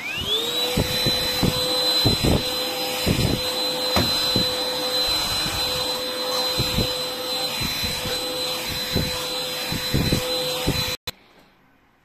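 Tefal TY6983 cordless stick vacuum switched on: its motor whines up to a steady high pitch within half a second and then runs steadily while the floor head is worked over a mattress, with irregular low thumps. It stops abruptly about eleven seconds in.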